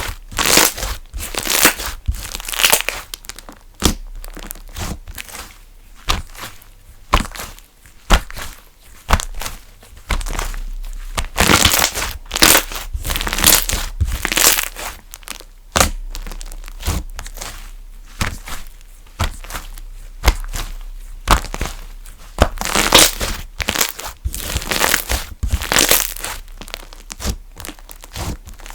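Slime being squeezed, pressed and poked by hand, giving irregular pops and crackles, a few each second, with louder squeezes now and then.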